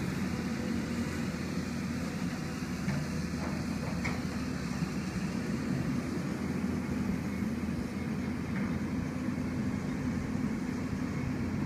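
Hyundai excavator's diesel engine running at a steady speed, with a few faint clicks a few seconds in.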